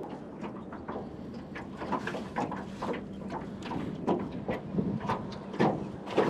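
Irregular knocks, clunks and rattles of gear being moved about in a jon boat, over a low steady hum.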